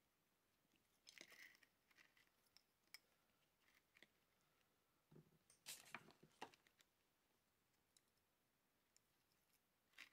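Near silence with a few faint clicks and rustles of small electronic parts being handled: a ribbon cable and the aluminium housing of a DRO glass-scale read head. The loudest click comes about six seconds in.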